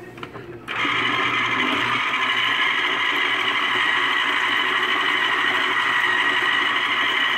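Philco Citrus Turbo electric citrus juicer motor starting with a sudden jump in level about a second in, as an orange half is pressed onto the reamer. It then runs steadily under the hand's heavy pressure without slowing or stopping.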